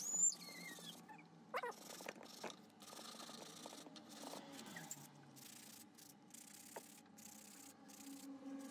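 Sandpaper wrapped on a stick rubbing over a small carved wooden piece in soft scratching strokes, smoothing dried white-glue filler in its cracks. Near the start there is a brief high whine that falls in pitch, the loudest sound, and a second short cry comes about a second and a half in.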